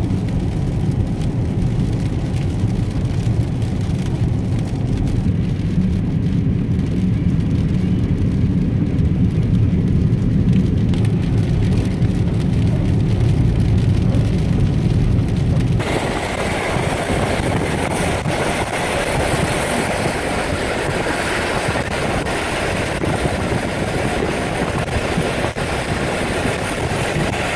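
Steady car driving noise from inside the cabin: a low engine and road drone, which about sixteen seconds in cuts abruptly to a brighter, even hiss of tyres and wind.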